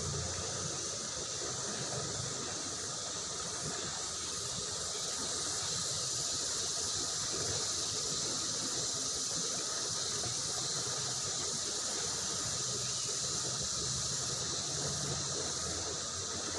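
Fast-flowing river water rushing over rocks, a steady hiss.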